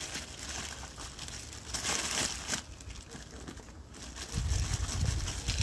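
Plastic bag crinkling and rustling as it is handled. Heavier low thumps and rumbling near the end.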